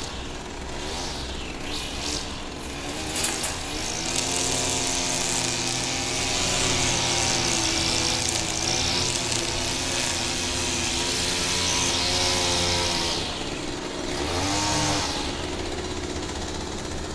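Petrol grass trimmer running at high speed while cutting grass, its engine note wavering up and down, over a steady high hiss. About fourteen seconds in the engine briefly drops and then picks up again.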